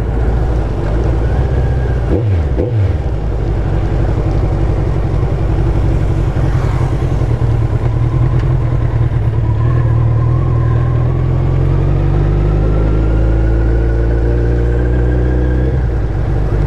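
A 2001 Suzuki Hayabusa's inline-four engine running under way, over a constant rush of wind and road noise. Its pitch dips and recovers briefly about two seconds in, climbs gradually through the second half as the bike speeds up, and drops back shortly before the end.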